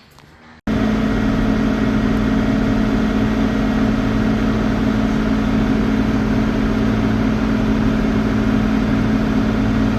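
Engine running steadily at constant speed with a strong even hum. It cuts in abruptly about half a second in.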